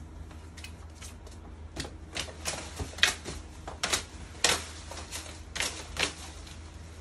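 A young eagle flapping its wings on the fist: an irregular run of sharp feather claps and flutters, bunched in the middle seconds, over a steady low hum. The bird is restless and not yet settled by training.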